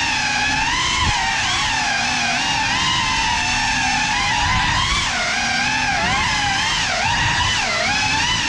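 Small FPV drone's electric motors and propellers whining, the pitch swinging up and down constantly with the throttle.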